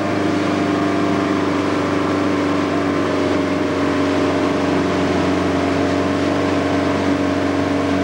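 Motorboat engine running steadily at towing speed, heard from aboard the boat, an even hum with constant pitch, over steady wind and water noise from the wake.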